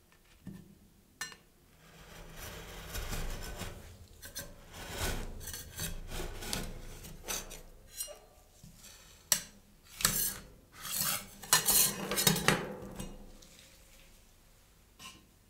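Metal spatula scraping along a frozen steel ice-cream plate, pushing a thin sheet of frozen ice cream up into a roll, with sharp metal-on-metal scrapes and clinks loudest in the second half before it stops near the end.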